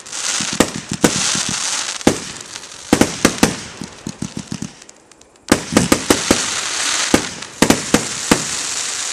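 Fireworks going off: a quick run of sharp bangs over a crackling hiss, which dies away about halfway through and then starts again with another fast string of bangs.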